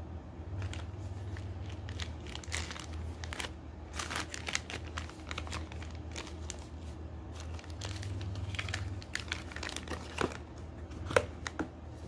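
Plastic parcel packaging crinkling and rustling in irregular handfuls as it is handled and opened, over a steady low hum, with one sharp click near the end.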